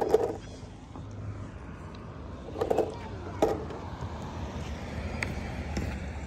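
Outdoor street ambience: a low steady rumble, with two brief voice-like sounds a little before the middle.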